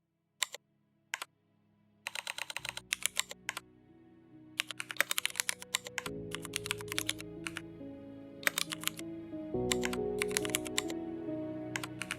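Computer keyboard typing: two single keystrokes, then quick runs of keystrokes, over background music that comes in a few seconds in and grows fuller.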